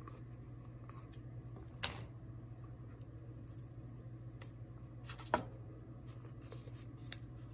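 Faint handling sounds of a vinyl skin being pressed and repositioned on an AR-15 magazine: a few light clicks and rustles, the sharpest about five seconds in, over a steady low hum.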